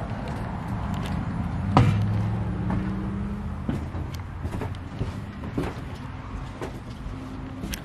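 Footsteps and knocks of someone moving about inside a small travel trailer, with a hard thump about two seconds in and a brief low hum after it.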